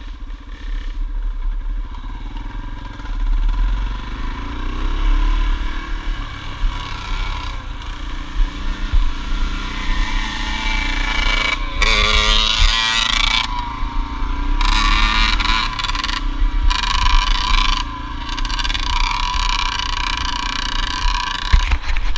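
Dirt bike engines running along a gravel road, with wind rumble on the microphone. About halfway through, a Yamaha YZ80 two-stroke revs up as it passes close by, its pitch rising.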